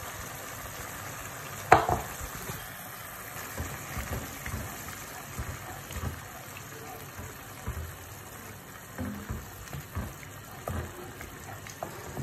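Mushroom and cream sauce simmering in a pan with a steady hiss, while a wooden spoon stirs and scrapes through it in many small knocks. One sharp knock just under two seconds in.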